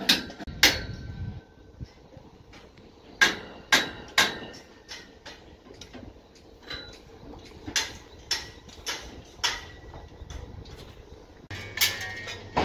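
Irregular sharp metal-on-metal knocks and clanks, a few ringing briefly, from steel scaffolding pipes and shoring props being handled. The clanks come faster near the end.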